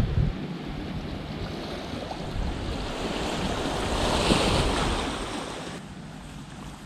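Small waves washing onto a sandy beach, with wind rumbling on the microphone; the wash swells to its loudest about four seconds in, then eases.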